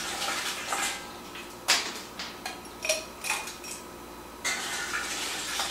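Ice cubes being scooped and dropped into a highball glass: rattling of cubes, with a sharp clink of ice on glass near two seconds in and a few more clinks after, then another stretch of rattling near the end.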